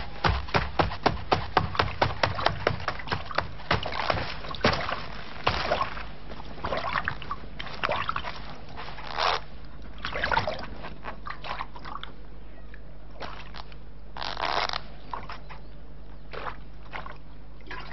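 A quick run of sharp knocks, about three a second, that thins out after about five seconds into scattered sloshing and scraping noises over a low steady hum.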